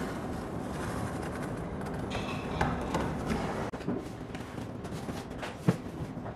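Box cutter slicing the packing tape along the top of a cardboard carton, a scratchy run of a second or so in the middle. A single sharp thump near the end.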